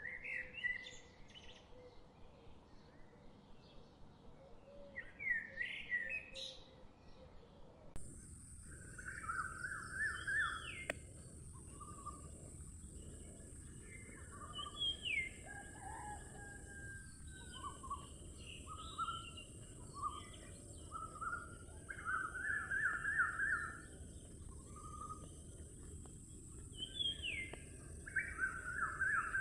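Birds chirping and calling outdoors: many short chirps and quick rattling trills. About eight seconds in the background changes abruptly and a steady high hiss runs under the calls.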